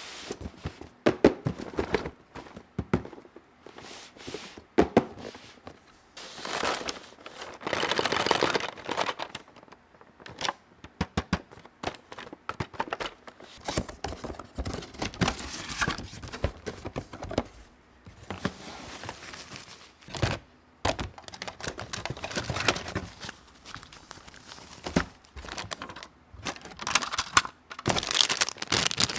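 Plastic toy packaging being crinkled and torn open, with many sharp clicks and taps of small plastic pieces being handled and set down. Longer rustling stretches about a third of the way in and again near the end.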